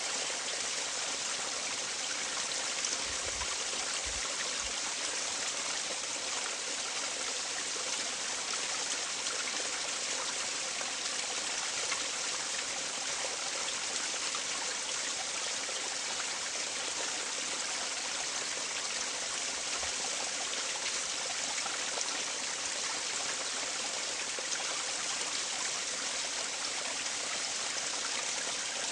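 Running water, a steady rush like a stream, with a few faint low bumps about three to four seconds in.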